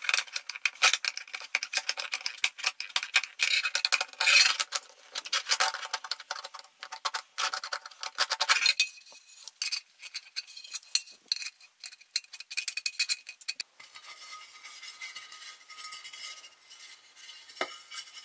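Sandblasting of small metal toy parts: a dense gritty hiss full of rapid ticks from the abrasive striking metal. About nine seconds in it drops to quieter, scattered ticks and clinks.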